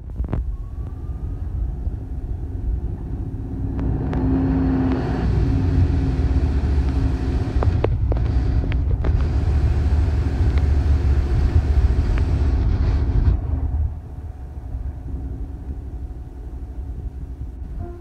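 A 2016 Gillig Low Floor hybrid-electric bus under way, heard from inside the cabin: a low rumble of drivetrain and road noise with a steady hum. It builds about four seconds in, holds, and falls away about fourteen seconds in. A few clicks and rattles come midway.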